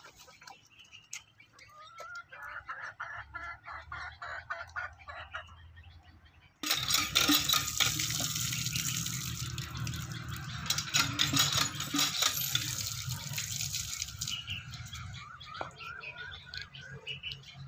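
Birds chirping, then about a third of the way in water starts running and splashing as a metal pot is filled and rinsed under a standpipe and emptied into a concrete trough, with sharp clatters of the metal pot; the splashing fades off near the end.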